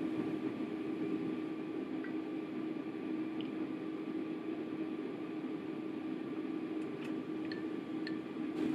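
Milk trickling from a carton through a small funnel into a glass of iced coffee, with a few faint clinks of ice, over a steady low hum.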